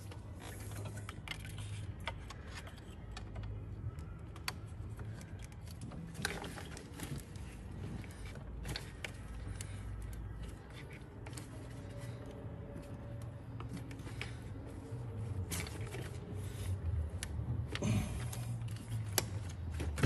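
Coolant hoses being worked off the back of a thermostat housing by hand: scattered clicks, small knocks and rattles of clamps and hose fittings over a low hum.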